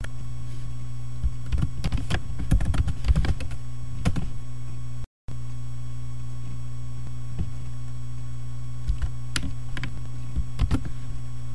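Typing on a computer keyboard: a quick run of key clicks over the first few seconds, then a few scattered clicks near the end, over a steady low electrical hum.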